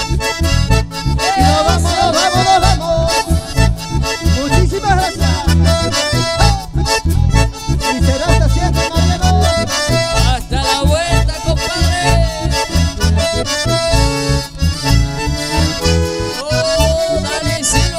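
Live band music led by a piano accordion and a bandoneon playing the melody, over guitar and electric bass keeping a steady beat. An instrumental passage, with no singing heard.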